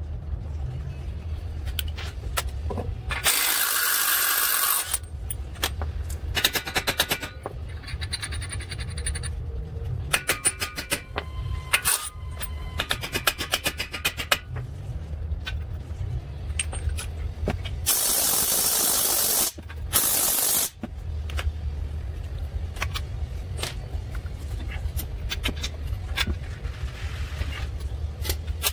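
Cordless impact wrench running bolts at a front wheel hub in bursts: two long runs, one about three seconds in and one near the two-thirds mark, then a short one. Between them come many sharp clicks and knocks of hand tools and metal parts.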